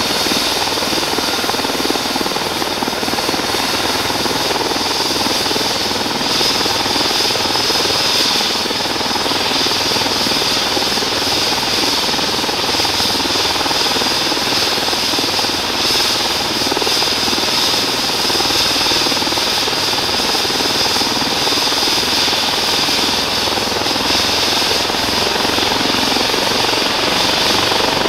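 Airbus H135's twin Pratt & Whitney PW206B3 turboshaft engines and rotor running steadily on the ground before take-off. A constant high turbine whine sits over the rotor noise, and near the end a lower tone begins to rise.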